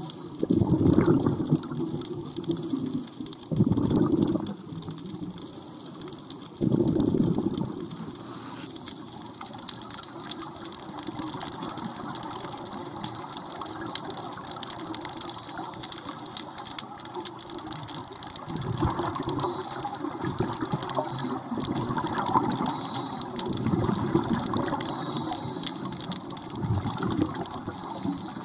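Scuba divers' exhaled air bubbling out of their regulators underwater, in several bursts about a second long, with a steady low rumble between them.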